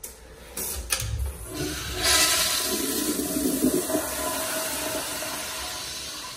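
American Standard flushometer toilet with a sensor-operated flush valve flushing. A couple of clicks come about a second in, then from about two seconds in a loud rushing flush slowly eases off.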